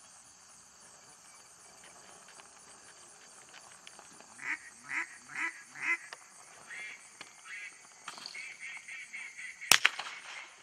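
A duck call blown in four loud quacks, then a quicker string of shorter quacks, followed near the end by a single shotgun blast, the loudest sound. Insects trill steadily underneath.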